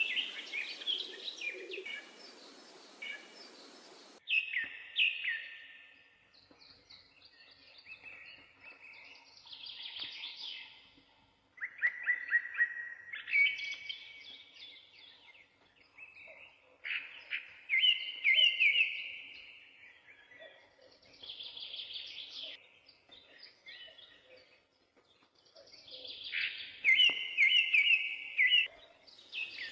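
A finch singing: short, high, warbling song phrases repeated every few seconds with pauses between them. A faint hiss under the first few seconds stops abruptly.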